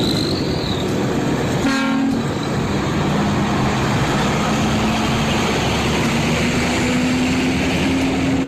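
Heavy vehicle running with a loud, steady rumble. There is a short horn blast about two seconds in, and a low hum that slowly rises in pitch.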